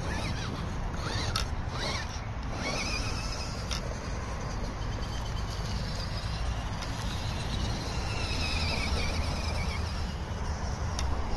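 FTX Ravine RC rock crawler's electric drivetrain whining in rising and falling glides as the throttle is worked, over a low steady rumble.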